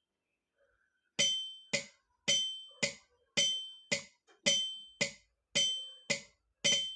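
Yamaha PSR-I455 keyboard's built-in metronome ticking at a steady tempo, about two ringing clicks a second, starting about a second in.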